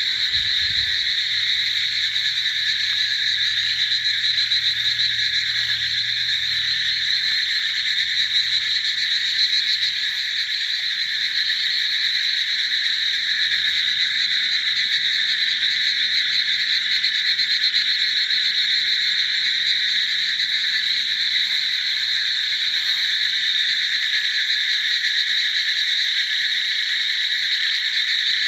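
A huge chorus of frogs calling all at once, a dense, unbroken din with no pauses.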